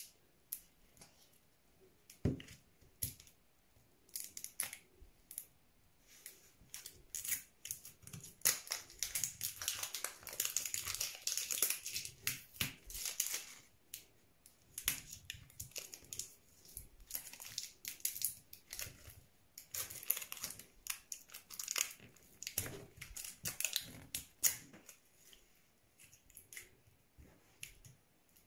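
Plastic wrapping of an LOL Surprise ball being peeled and torn off by hand, crinkling and crackling in irregular bursts, busiest about a third of the way in.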